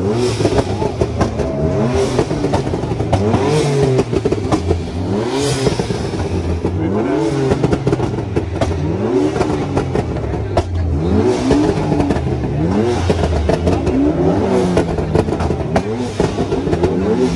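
A car engine revved again and again, its pitch rising and falling with each blip of the throttle roughly every second or so, over the noise of a crowd.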